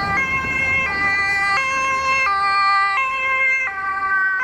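Two-tone emergency siren sounding loudly, switching between a high and a low note about every three-quarters of a second; it starts and cuts off abruptly.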